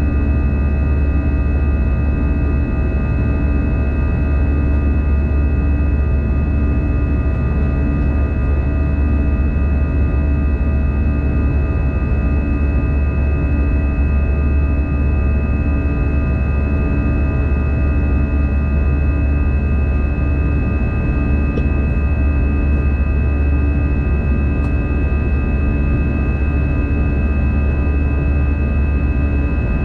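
Steady cabin noise of an Airbus A320 climbing after takeoff, heard beside the wing: a deep engine and airflow rumble with several steady high whining tones from the jet engines, and a low hum that pulses about once a second.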